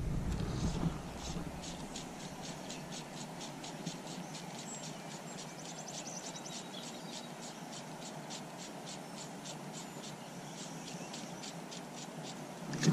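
An insect chirping in a steady rhythm, about five short high pulses a second, over a faint steady hiss.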